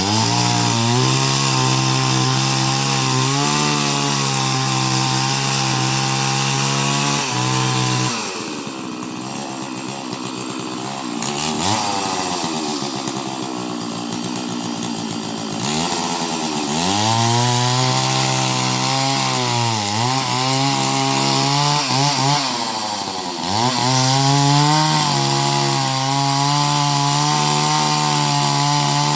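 Two-stroke chainsaw running at high revs, then dropping back about eight seconds in. It revs up again a few seconds later, and its pitch sags and recovers twice, as it does when the chain is loaded in a cut, here through a coconut.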